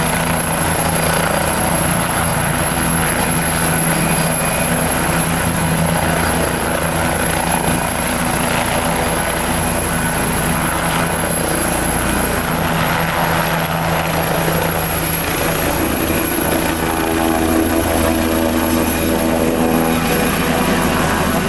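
Helicopter running steadily: a rapid chop of the rotor blades under a steady engine drone. A higher tone rises in the drone for a few seconds about three-quarters of the way through.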